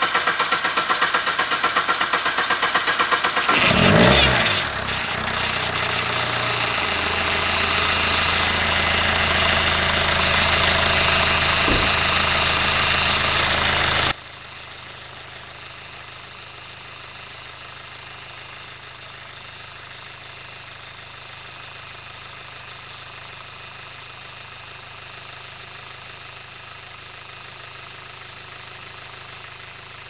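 A 2019 SsangYong Rexton Sports 2.2 diesel engine cranking on the starter. It catches about four seconds in with a brief rev, then runs steadily. About halfway through the sound drops sharply to a quieter steady idle; the mechanic puts the engine's sound down to air in the fuel pump.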